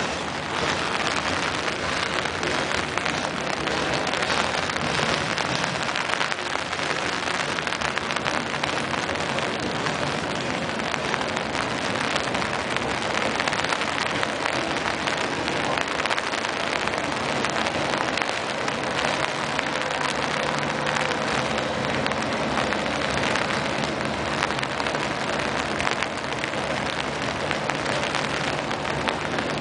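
Heavy rain falling steadily on an umbrella held over the microphone, with a freight train rolling past underneath it.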